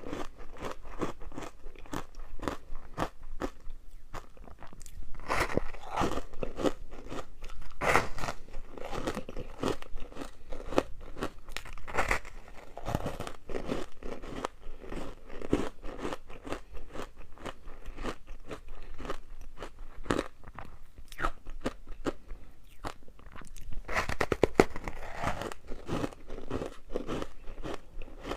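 Ice being bitten and chewed close to the microphone: a continuous run of crisp cracks and crunches, with several louder bites spread through.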